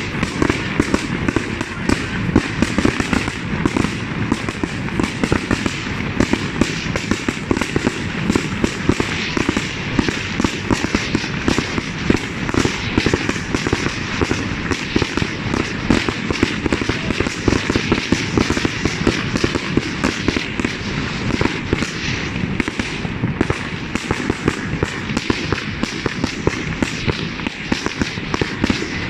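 A fireworks display going off in a dense, continuous barrage of bangs and crackles, with no pause.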